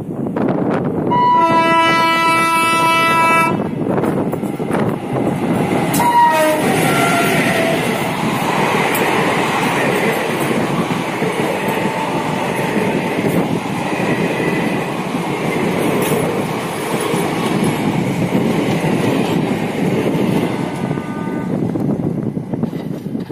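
Alco diesel locomotive sounding one steady horn blast of about two seconds, starting about a second in. The train then runs past close by, with the locomotive followed by a long steady clatter of the coaches' wheels on the rails.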